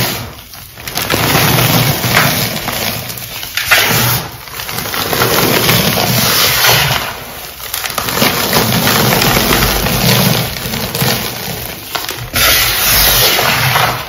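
Dyed gym chalk crushed by hand and falling as powder onto a wooden board: a close, grainy crunching and hissing, in stretches of a few seconds broken by brief pauses.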